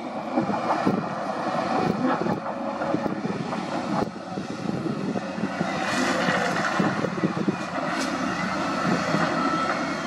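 Diesel engines of a Shantui crawler bulldozer and a wheel loader running under load as they push rock, with scattered knocks and clatter of rock against the blade and bucket.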